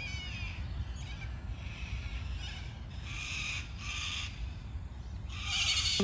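Birds calling: a few short, harsh calls about three seconds in, again a moment later and near the end, with a brief chirp at the start, over a steady low rumble.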